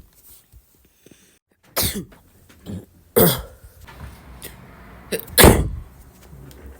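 Three loud sneezes, each a short sharp burst of breath and voice, spaced a second or two apart.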